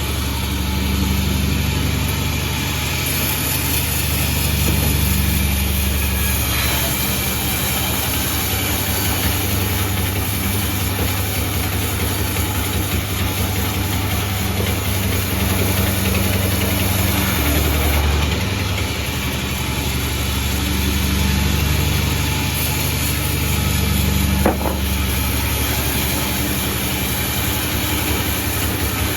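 Engine-driven Pandan36 sawmill running steadily, its engine a constant low hum under a wide mechanical hiss. A single sharp knock late on.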